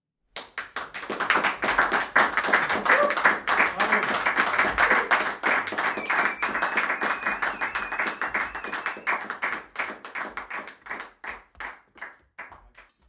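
Audience applauding: the clapping breaks out suddenly, holds dense for several seconds, then thins to a few scattered claps that die away near the end.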